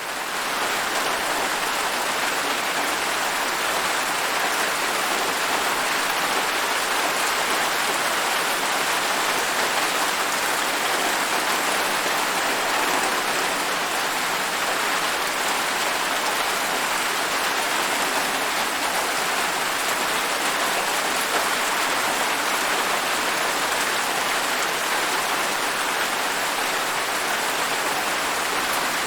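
Steady, heavy rain falling and pattering on surfaces, an even hiss that fades in at the very start.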